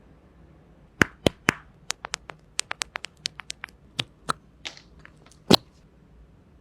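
Hands handling a smartphone box and its packaging: about twenty sharp clicks and taps over some four seconds, the loudest near the start and one near the end.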